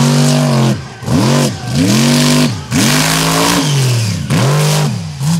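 Mega truck engine revving hard in repeated bursts: the pitch climbs, holds and falls away about six times, with brief lifts of the throttle in between.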